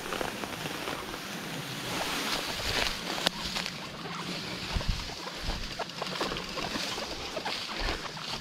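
Bicycle being pushed through brush: irregular rustling and crackling of vegetation with scattered clicks and knocks.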